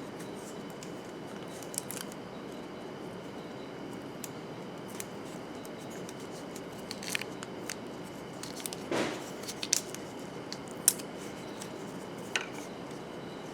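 Tape being handled: a strip pulled off the roll with a short tearing rasp about nine seconds in. Scattered light clicks and handling noises sit over a steady low hiss.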